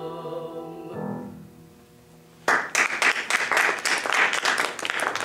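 The last sung note and piano chord of a solo song fade away, then about two and a half seconds in a small audience breaks into applause, which stops near the end.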